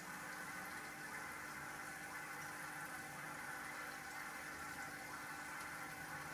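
Steady bubbling and trickling of circulating aquarium water, with a faint steady hum under it.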